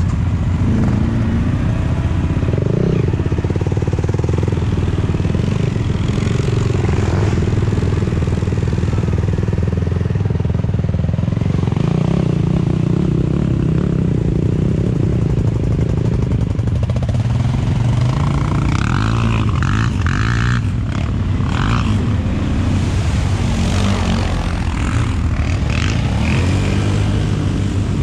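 ATV engine running steadily, with a cluster of knocks and rattles about two-thirds of the way through.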